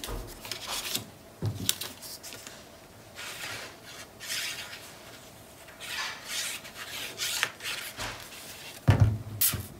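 Paper rubbing and rustling in several short spells as strips of patterned paper are handled and glued on a cutting mat, with a knock near the end.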